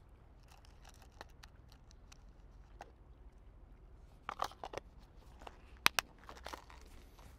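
Scissors snipping through a strip of raw fish flesh and skin for bait: scattered crunchy cuts, a quick cluster about four and a half seconds in, and two sharp snips near six seconds.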